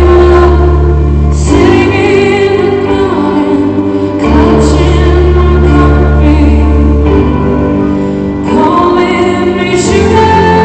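Live pop ballad: a woman singing over held low chords that change twice, recorded loud from the audience.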